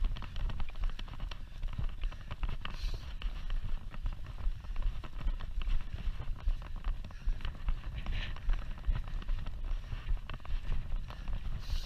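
Mountain bike ridden over a rough dirt track: tyres running over stones and ruts, with many small knocks and rattles from the bike, over a constant low rumble of wind on the camera microphone.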